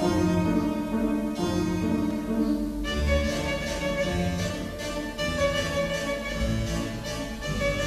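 Orchestral ballet music led by bowed strings, with sustained notes; about three seconds in a low note sounds and the music grows fuller.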